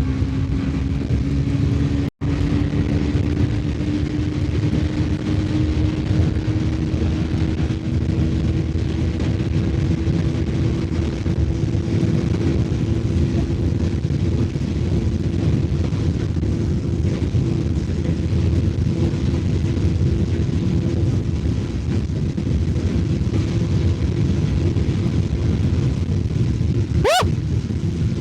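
Bajaj Pulsar NS400Z's single-cylinder engine running hard at high speed in top gear, its note climbing slowly and steadily. Near the end comes a short, sharp rise in pitch.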